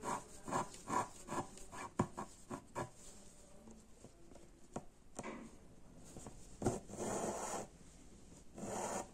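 Embroidery thread drawn through cloth stretched in a hoop, with the needle piercing the fabric and fingers rubbing it. A quick run of small ticks and scratches in the first few seconds gives way to a few longer rasping pulls of thread near the middle and end.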